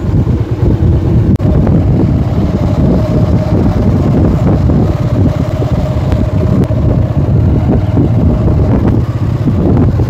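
Wind buffeting the microphone on a moving motorcycle, with the motorcycle engine running underneath: a loud, steady low rumble.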